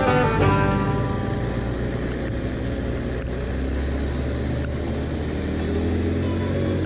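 ATV engine running at a steady speed, a low even drone under some rushing noise.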